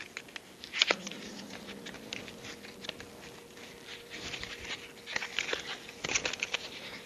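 Paper rustling and crinkling in the hands, with scattered small clicks and a sharper snap just under a second in.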